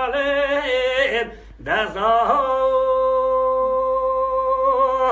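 Unaccompanied male voice singing a Kurdish dengbêj-style lament. The phrase breaks off for a breath about a second and a half in, then he holds one long, steady note.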